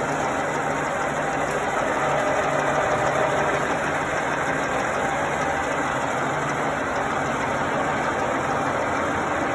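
Hitachi Seiki milling machine running under power, its motor and gear train turning with a steady mechanical hum and whir, slightly louder about two seconds in.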